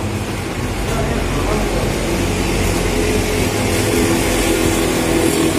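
A motor vehicle's engine running, growing a little louder and rising slightly in pitch over the last couple of seconds.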